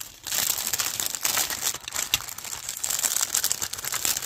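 Clear plastic packaging crinkling and crackling as it is torn open and peeled away by hand, a dense run of small crackles after a brief pause at the start.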